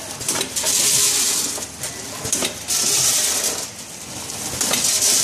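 Measuring-cup vertical packing machine running through its cycle: a hiss that swells and fades about every two seconds, with a clatter of clicks as crisp corn snack pieces drop through the stainless funnel.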